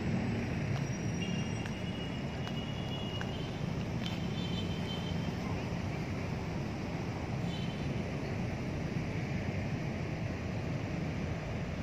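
Steady low rumble of distant road traffic, with a few faint high-pitched chirps in the first half.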